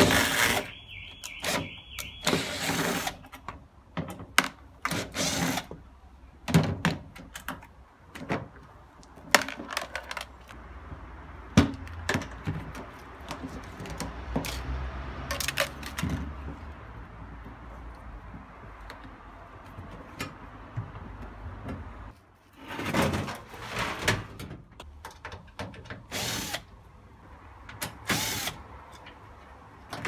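Makita cordless drill-driver whining in short runs as it backs out screws from a washing machine's front panel, among repeated knocks and clatter of plastic panels and parts being handled.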